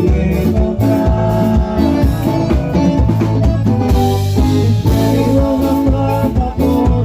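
A band playing music: a drum kit keeping a steady beat over a strong bass line, with guitar.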